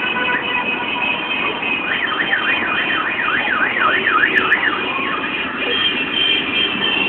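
Electronic siren warbling quickly up and down, about three sweeps a second, for nearly three seconds starting about two seconds in. Under it runs the steady noise of heavy motorcycle and car traffic.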